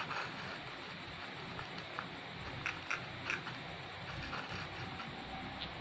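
Faint scratching of a paintbrush working paint over an unglazed clay bowl, with a few light clicks, over a steady background hiss.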